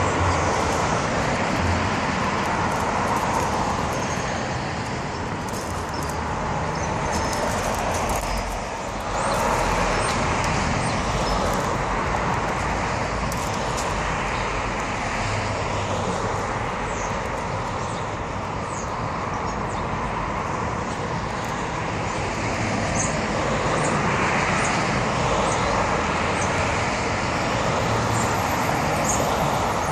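Road traffic on a multi-lane city street: a steady wash of tyre and engine noise as cars pass one after another, swelling and easing as each goes by.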